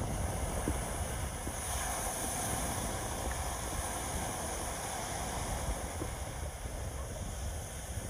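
Ocean surf washing up a sandy beach in a steady rush, with wind rumbling on the microphone.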